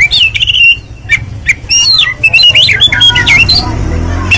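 Oriental magpie-robin singing a fast, varied run of loud whistled notes, with quick rising and falling slurs and short chattering phrases.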